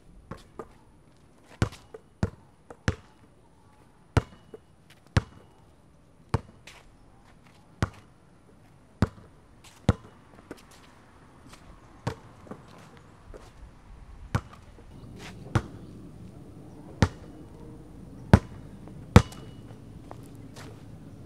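A basketball being dribbled on concrete: sharp single slaps about once a second, unevenly spaced and varying in loudness, the loudest near the end. A low steady hum comes in underneath about two-thirds of the way through.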